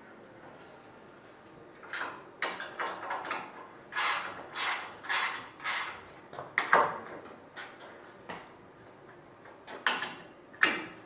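A quick run of short scraping and sliding sounds of thin aluminium sheet being shifted and set in place in a homemade sheet-metal brake, then a few sharper metallic clacks near the end as locking-plier clamps are picked up from the bench.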